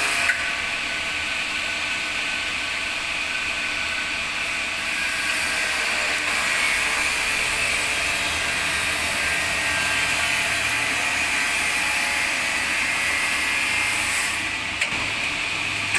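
Amada HA-250 horizontal band saw running, a steady mechanical whir from its motor and blade drive, with a few clicks near the end.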